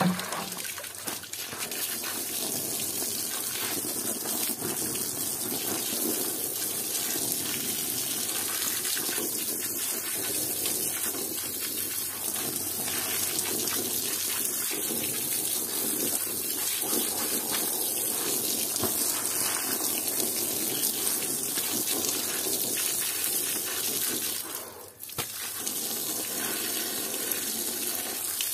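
Stream of water from a hose splashing steadily onto a soaked plush toy and wet stone floor, a continuous rushing splash that briefly drops out near the end.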